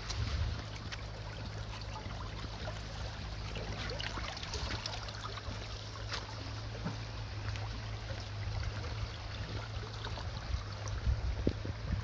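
Shallow stream running over pebbles: a steady trickling rush of water with small scattered splashes and clicks, over a steady low rumble.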